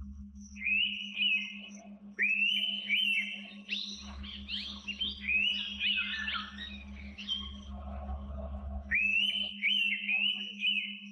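Birds whistling: quick runs of short, rising whistled notes, with several voices overlapping in the middle, over a steady low pulsing hum.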